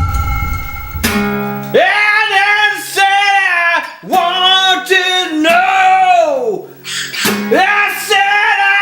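A voice singing long held phrases to strummed acoustic guitar. It starts about a second in, after a low hum, with a guitar chord.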